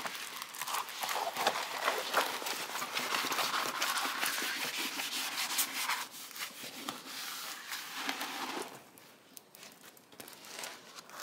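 Diamond painting canvas, still under its plastic cover film, rustling and crackling as it is rolled up by hand the opposite way, against its curl. The sound drops away after about eight and a half seconds.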